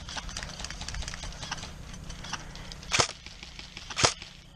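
Airsoft gun firing two sharp single shots about a second apart, over faint scattered ticks and cracks of other shots and BB hits.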